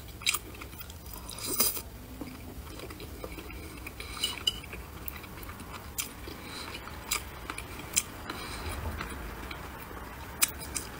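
Close-miked eating: biting and chewing, with scattered sharp mouth clicks and crackles.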